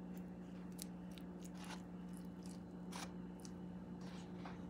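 Faint, scattered soft ticks and squishes of a basting brush dabbing butter onto raw turkey skin in a foil roasting pan, over a steady low hum.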